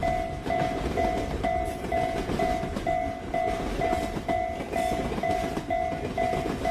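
Japanese railroad crossing warning bell dinging about twice a second, over the steady noise of a train passing the crossing.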